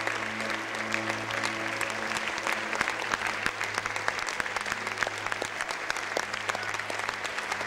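Audience applauding steadily, with a low, held musical tone sounding beneath it.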